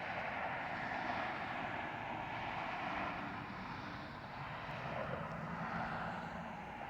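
Rolls-Royce RB211 turbofans of a Boeing 757 freighter at takeoff power, a steady jet roar with a whine. It swells at the start and eases off a little near the end.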